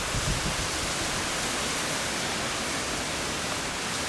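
Strong storm wind, with rain, making a steady rushing noise.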